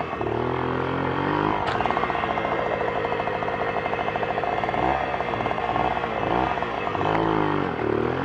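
Hercules Prima 6 moped's small two-stroke engine running close to the microphone, its revs climbing and dropping again several times as the throttle is opened and closed.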